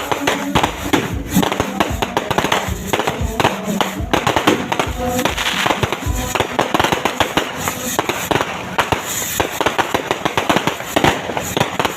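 Many fireworks and firecrackers going off at once: a dense, unbroken run of bangs and crackles.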